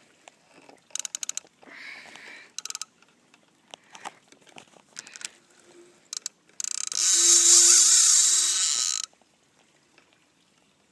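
Fishing reel drag buzzing in rapid clicks as a hooked catfish pulls line off the spool. Two short bursts come about a second apart early on, then a loud run of about two and a half seconds past the middle: the fish is making a run against the drag.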